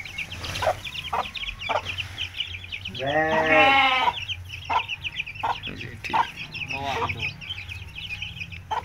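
Month-old Aseel chicks peeping constantly, with short clucks from the Aseel hen among them. A single long bleat about three seconds in, and a shorter call near seven seconds.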